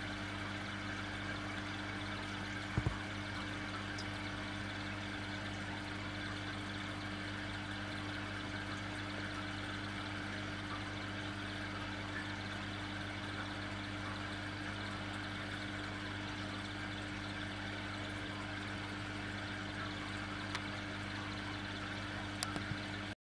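Steady hum of an aquarium pump with water trickling into the tank, and one sharp knock about three seconds in.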